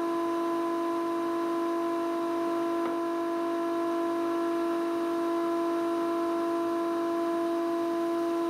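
Triton TRA-001 router spinning its bit under a router table, running free with no timber in the cut: a steady, unchanging high-pitched whine.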